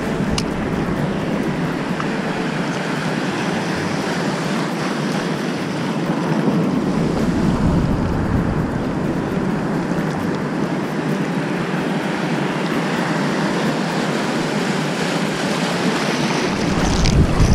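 Ocean waves and wind buffeting the microphone on open water: a steady, noisy rush, with heavier low wind rumble about six seconds in and again near the end.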